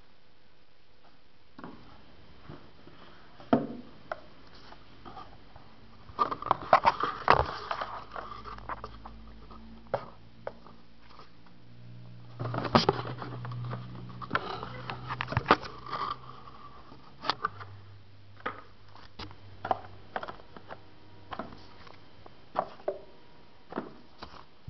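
Handling noises from unboxing a phone: scattered clicks and taps, with two longer stretches of rustling about six and twelve seconds in.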